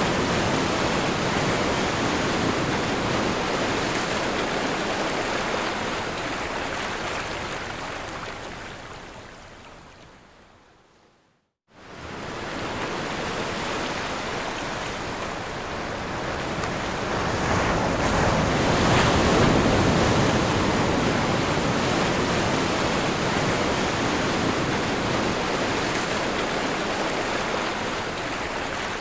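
Ocean waves breaking and washing on a shore, a broad rushing hiss. About eleven seconds in it fades to a moment of silence, then cuts back in suddenly and swells again with another wave a few seconds later.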